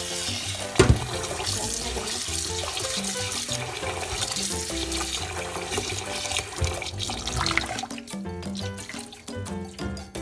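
Tap water running into a stainless-steel sink and bowl as glutinous rice is rinsed by hand, with a sharp knock about a second in; the water noise thins near the end. Background music plays throughout.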